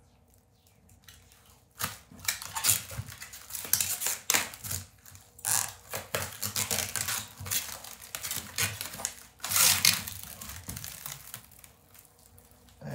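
Blue protective plastic film being peeled off the front cover of a resin 3D printer and bunched in the hands. It crinkles and rustles in irregular bursts from about two seconds in.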